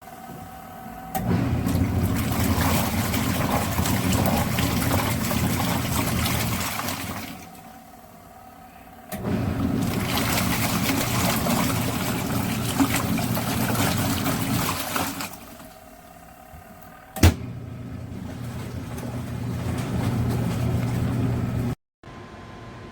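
COSTWAY twin-tub portable washing machine agitating a load: motor hum and churning water in runs of about six seconds with short pauses between, as the wash cycle stops and starts. A sharp click comes about seventeen seconds in, after which the motor runs on more quietly.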